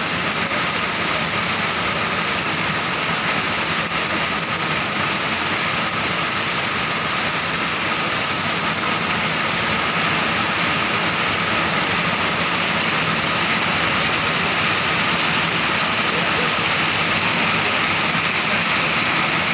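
Heavy rain pouring down onto a paved street and parked motorcycles, a steady dense hiss of falling water.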